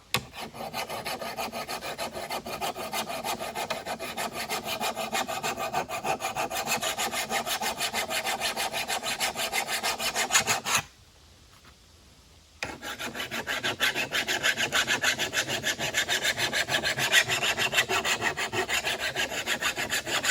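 Flat file rasping across the edge of a steel lawn mower blade in fast, even strokes, taking metal off a badly worn edge. The filing stops for about two seconds a little past halfway, then carries on.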